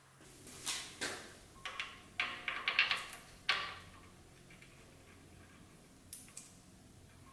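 Small metallic clicks and taps of a hand tool working on an engine's timing-chain components, with a quick run of clicks about two seconds in, then a couple of faint ticks near the end.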